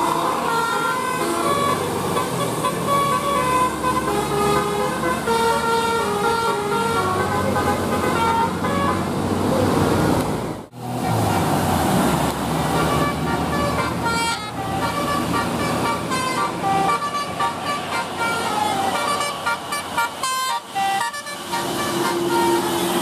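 Indonesian bus basuri multi-tone 'telolet' horn playing a tune of short held notes that step up and down in pitch, over the bus's engine noise, with a brief break about halfway through.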